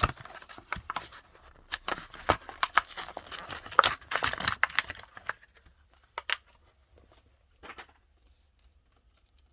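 Cardboard-and-plastic blister card of a die-cast toy car being torn open by hand: ripping and crinkling for about five seconds, then two faint clicks.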